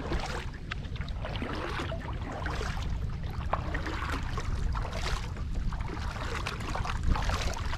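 Kayak paddle strokes: a double-bladed paddle dipping and pulling through the water with small splashes and drips, over a constant low rumble of wind on the microphone.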